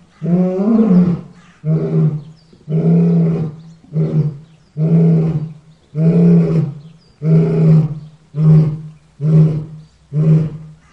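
Lion roaring in a bout: about eleven roars in a row, the later ones shorter and coming faster.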